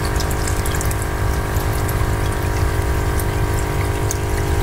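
Small electric water pump humming steadily, with water from an inlet splashing into a crayfish tank.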